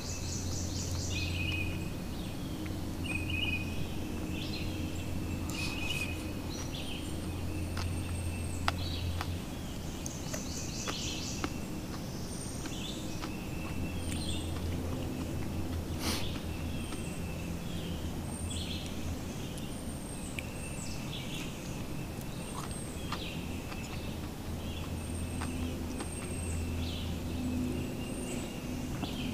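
Several birds chirping and calling again and again, over a low hum that comes and goes. A few sharp clicks, the fork knocking on the metal pan, stand out above them.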